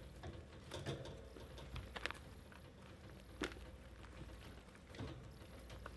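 Faint rustling and a few small clicks as baby rats shift and groom each other in a nest of shredded paper bedding, the sharpest click about three and a half seconds in.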